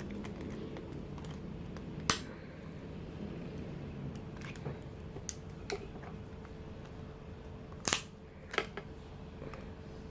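Hands opening a small merchandise package: scattered sharp clicks and taps, the loudest about two seconds in and another pair near eight seconds, over a faint steady hum.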